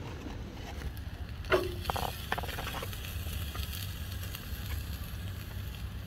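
Steady low rumble of background noise, with a brief faint tone and a few light clicks about one and a half to three seconds in.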